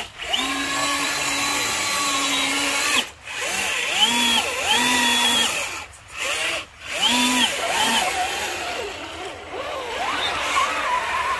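Electric motor of a 1/10-scale RC Jeep Cherokee rock crawler whining under throttle, held steady for the first few seconds and then rising and falling in pitch in short throttle bursts, with a few brief breaks.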